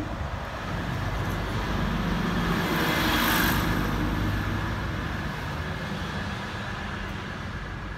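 City bus driving past: engine rumble and tyre noise swell to a peak about three seconds in, then fade as it pulls away.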